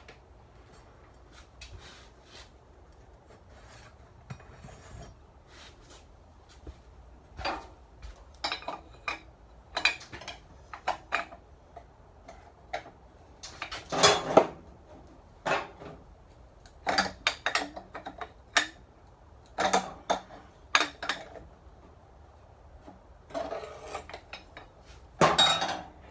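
Small metal parts of a Briggs & Stratton ratchet starter clutch clinking and clattering irregularly as they are handled and taken apart, starting a few seconds in, with two louder clanks near the middle and near the end.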